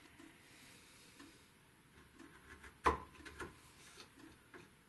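Faint wooden knocks and ticks of a hand chisel and a walnut dovetail board in a vise, with one sharp knock about three seconds in and a few lighter clicks after it as the chisel starts paring very light shavings.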